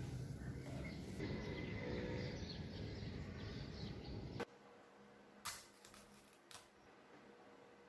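Outdoor ambience with faint bird chirps over a low background rumble, cutting off abruptly after about four and a half seconds. What follows is a quiet room with two light clicks of hands handling utensils on a table, about a second apart.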